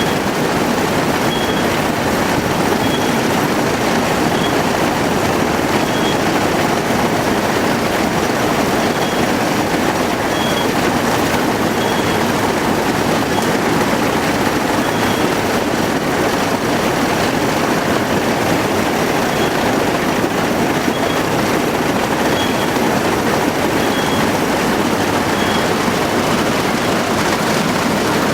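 G60 combine harvester running steadily at work, a loud, even machine noise. A faint short high tone repeats about every one and a half seconds over it.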